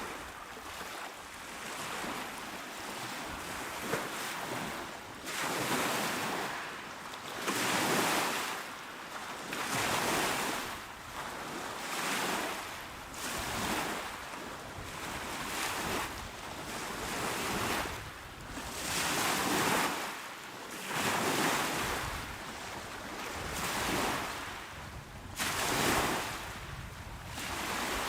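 Calm waves breaking and washing onto a shore, one after another. Each wave is a surge of hiss that swells and fades, coming every two to three seconds.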